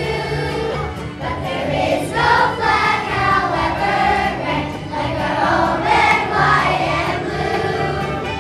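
A chorus of young children singing a patriotic song together over a steady instrumental accompaniment.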